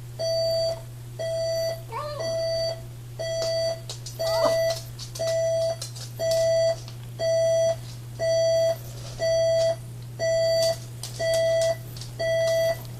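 Electronic alarm clock beeping, a single steady tone about once a second, with a Chihuahua giving two short howls, one about two seconds in and another about four and a half seconds in.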